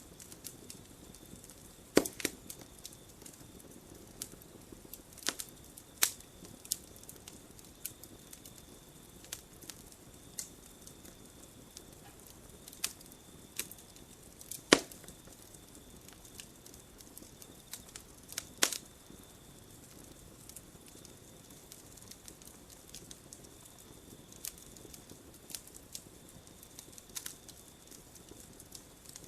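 Wood campfire burning: irregular sharp crackles and pops, with a few louder snaps, over a low steady hiss of the flames. A faint steady high note sounds underneath at times.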